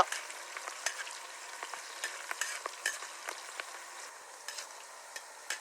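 Sliced garlic, ginger, green chillies and curry leaves sizzling in hot coconut oil in an uruli while being stirred, with frequent small clicks of the stirrer against the pan. They are being lightly sautéed.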